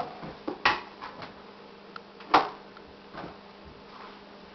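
A few short knocks and clicks at irregular intervals, the loudest about two and a half seconds in, over a low steady room hum.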